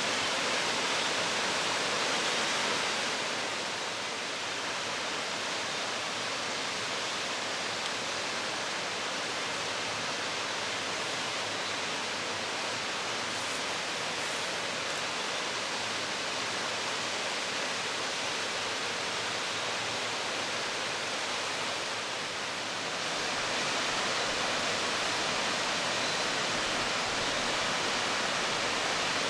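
Narudani Ōtaki waterfall: a steady rush of falling water, dipping slightly in level a few seconds in and swelling again near the end.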